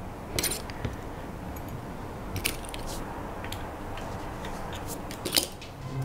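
A few light, scattered clicks and clinks of small metal lock-picking tools being handled and set down on the bench.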